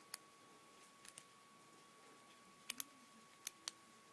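Near silence broken by a few faint, light clicks, mostly in pairs, as a Brinks deadbolt lock and lock-picking tools are handled, over a faint steady high whine.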